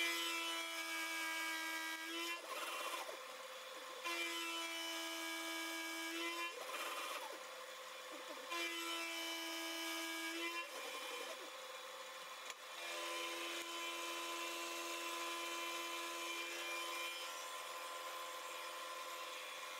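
Milling machine face-milling a small metal block down to thickness, running steadily as the cutter works across the part. A pitched whine with overtones rises out of the machine noise four times, for about two to four seconds each, the last stopping a few seconds before the end.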